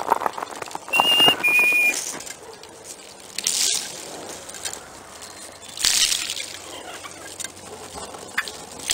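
A flock of wild turkeys feeding on snowy ground: brief noisy bursts every couple of seconds, and about a second in two short clear whistled notes, the second slightly lower than the first.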